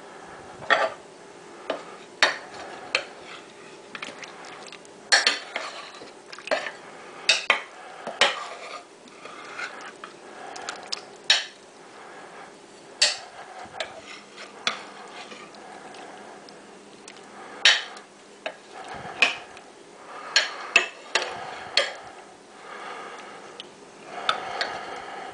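Metal serving spoon clinking and scraping against a slow cooker's crock while stirring and lifting chicken legs in thick soup, with irregular sharp knocks about every second.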